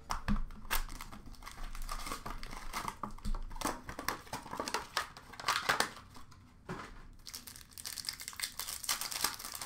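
Foil wrappers of Upper Deck Artifacts hockey card packs crinkling and tearing in the hands as the packs are ripped open, in a run of irregular rustles and rips.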